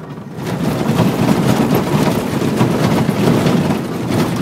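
Cabin noise inside a Toyota Land Cruiser driving fast over a rough desert dirt track. The engine and tyres rumble, with frequent knocks and rattles from the jolting, and the noise swells up about half a second in.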